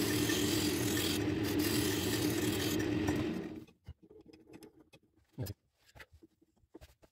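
Wood lathe spinning a mahogany spindle while a turning chisel cuts it: a steady hum under the hiss of the cut, which stops about three and a half seconds in. After that, only a few faint taps and clicks.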